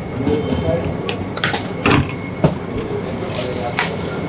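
A few sharp clinks and knocks of a steel serving spoon against steel pots of dal and chutney, over a low murmur of background voices.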